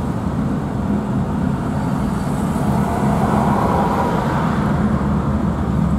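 Steady engine and road noise heard inside a car's cabin while it creeps along in a traffic jam.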